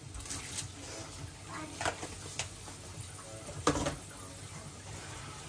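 Kitchen handling sounds: a handful of light clicks and knocks from utensils and containers, the sharpest nearly four seconds in, over a low steady hum.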